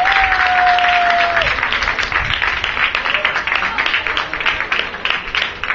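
Audience applause, a dense patter of many hands clapping that thins out and fades toward the end, with one held, slightly falling whistle in the first second and a half.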